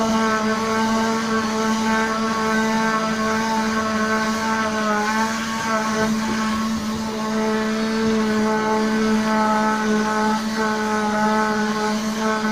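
Tornador Z-020 air-driven cleaning tool running steadily on the car seat: a constant pitched drone over a hiss, its pitch wavering slightly a few times.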